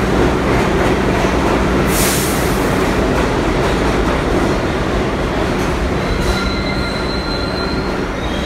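R62A subway train pulling into the station and slowing to a stop, a loud steady rumble of steel wheels on rail. There is a short hiss about two seconds in, and thin high squeals in the last few seconds as it brakes.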